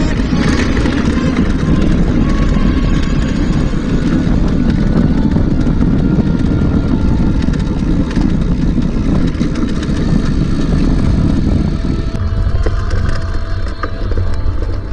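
Wind buffeting the microphone: a loud, steady low rumble with hiss that cuts off abruptly at the end.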